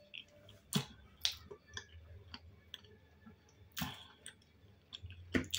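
Close-up chewing of boiled dumplings, with a series of sharp, wet mouth clicks and smacks, four of them louder than the rest.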